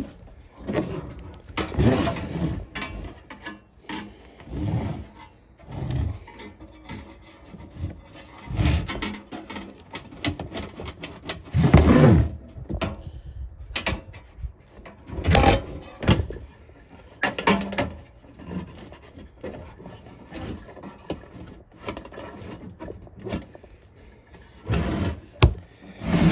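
Hand tools and parts of a car heater box being worked: irregular scraping, rubbing, clicks and knocks as screws come out and a stuck piece is pried loose.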